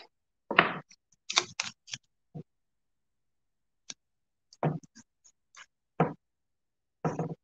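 Masking tape being laid and pressed onto a painted board by hand: a string of short, irregular rustles, crackles and taps.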